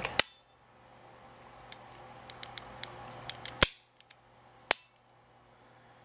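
KLOM manual lock pick gun, cover off, being snapped by hand: its spring-loaded hammer flicks and strikes its stop tab in sharp metal snaps, one right at the start, then a run of light clicks, then two more snaps about a second apart.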